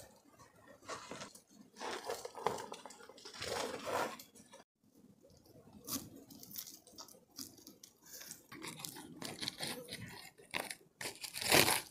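Plastic tarpaulin and plastic rope crinkling and rustling in short, irregular bursts as they are handled and knotted, with a brief break about a third of the way in and the loudest crinkle near the end.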